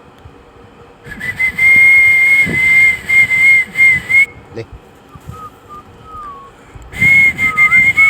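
A loud, steady, high whistling tone held for about three seconds, stopping, then starting again near the end. Fainter wavering squeaks come in the gap.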